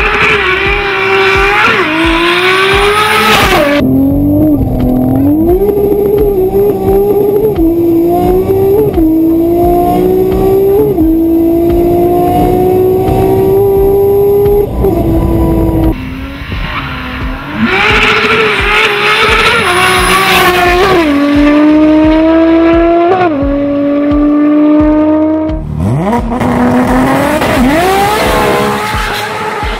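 Engine-swapped Audi S3 accelerating hard through the gears. The engine note climbs steadily and drops sharply at each upshift, over and over, and breaks off and starts again abruptly a few times. Near the end it revs up fast from low.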